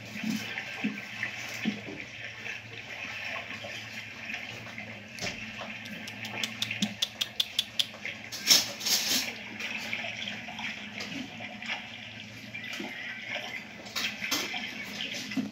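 Puppy eating from a metal tray: wet chewing and smacking over a steady hiss, with a quick run of clicks about five seconds in and a louder clatter near the middle.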